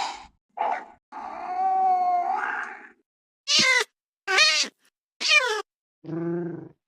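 A series of made-up serval calls, cat-like meows and yowls: a short call, then one long call held on a steady pitch that rises at its end, three short high calls with bending pitch about a second apart, and a lower call near the end.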